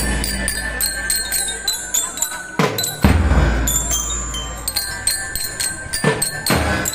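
Drum and lyre band playing: bell lyres ring out quick metallic notes over rapid drum strokes, with two heavy bass drum hits about three seconds in and near the end.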